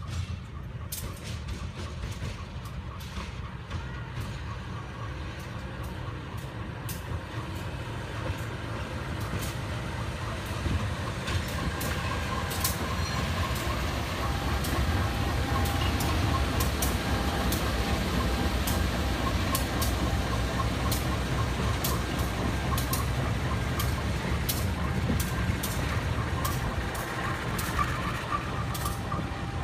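CC 201-class diesel-electric locomotive moving slowly past: its diesel engine runs with a steady low rumble while the wheels click and clank over the rail joints. The sound grows louder through the first half as it comes alongside.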